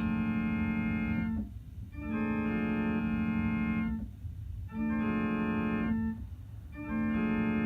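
Electronic keyboard on an organ-like voice playing a held five-note chord in imitation of a Nathan P01235 five-chime train horn with new cast bells except the 0 bell. It sounds as four blasts, the third shorter than the others.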